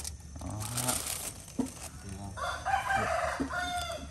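A rooster crowing once, a single call of about a second and a half, in the second half.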